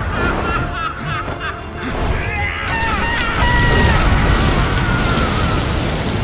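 Background music under the sound effects of a magical energy blast: a deep rumble and booms that swell louder about three and a half seconds in.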